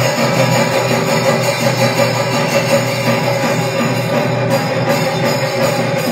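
Loud, steady instrumental temple music with sustained tones and drumming, played during the lamp-waving aarti before the deity.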